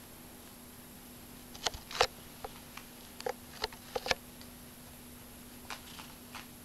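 A cat playing with a catnip ball on carpet: scattered short clicks and scuffs from claws and teeth on the toy and carpet, with a quick cluster about two seconds in and a few more near the end.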